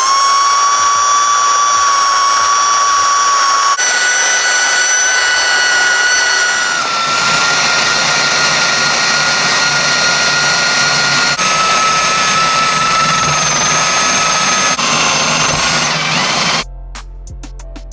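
Drill spinning a 3M rubber eraser wheel against old adhesive on car paint: a steady motor whine over a rough scrubbing noise, its pitch stepping up or down a few times as the speed changes. Near the end it gives way to music with a drum beat.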